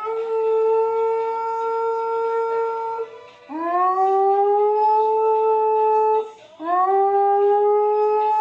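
A dog howling: three long, drawn-out howls, each swooping up at the start and then held at a steady pitch.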